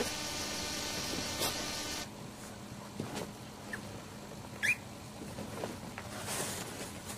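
A steady electrical hum that stops about two seconds in, then a short, high, rising squeak about halfway through, with a fainter squeak just before it.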